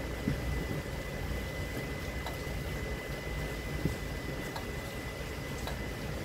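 Steady low hum of air conditioning, with a thin steady high tone above it and a few faint clicks and soft knocks.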